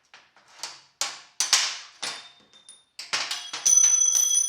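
Metal parts and tools clanking and knocking on a hard surface in a quick irregular run. Near the end one metal strike rings on for about a second.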